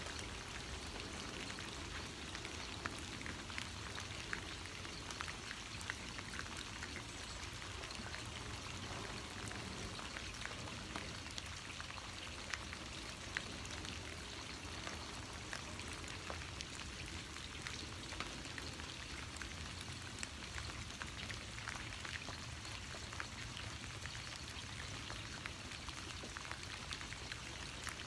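Steady rain falling, with many small ticks of individual drops through an even hiss.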